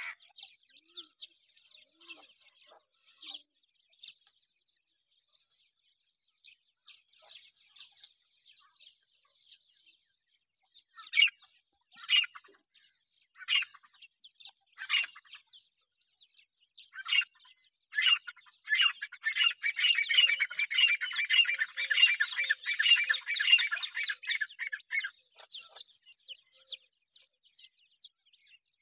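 Grey francolin chicks and hens calling: faint high peeping at first, then several loud separate calls, then a dense run of rapid calls lasting about six seconds past the middle.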